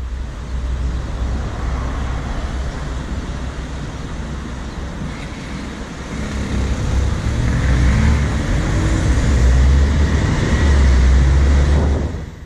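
Traffic noise with a heavy low rumble, heard from a car waiting at a junction. About halfway through it grows louder, and a faint rising engine note comes in as the car pulls away.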